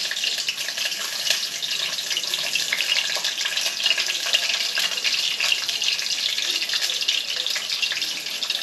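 Food frying in hot oil in a pot on a gas stove: a steady sizzle full of fine crackles.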